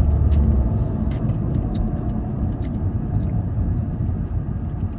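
Steady low rumble of a moving car heard from inside the cabin: engine and road noise while driving in traffic, a little louder in the first second.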